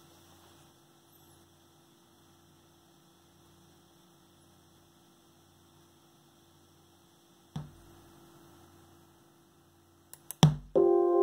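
Hansung 2779UH monitor's built-in speaker giving a single sharp pop about seven and a half seconds in, as its white-noise playback cuts out: the fault where the speaker pops and drops the sound. Under it is a faint steady hum. Near the end a few clicks come, and then a loud sustained sound of several steady tones starts playing through the speaker.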